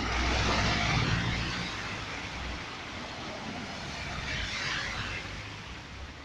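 Cars driving through a flooded street: a car passes close with its engine running and its tyres throwing up a hiss of water spray, the loudest moment in the first second or two. A second car splashes past about four seconds in.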